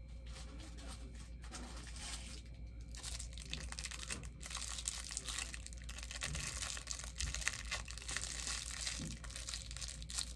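Plastic packaging crinkling and tearing as a small bag is worked open by hand, a busy run of small crackles that grows denser about three seconds in.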